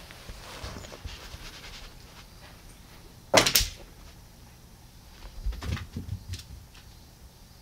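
A cat moving on carpet close to the microphone: a sudden loud thump with a short rustle about three and a half seconds in, then a few softer thuds of paws as it moves off.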